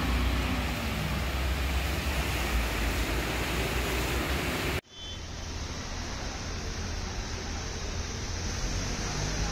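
Road traffic driving through a waterlogged street: engine rumble with a steady wash of water under the wheels. About halfway through it cuts off abruptly, and a quieter steady noise of the flooded street follows.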